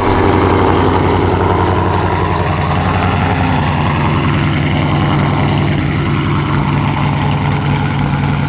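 Cammed Dodge Challenger Scat Pack's 6.4-litre (392) HEMI V8 idling, loud and steady, with the pulsing, uneven idle that an aftermarket camshaft gives.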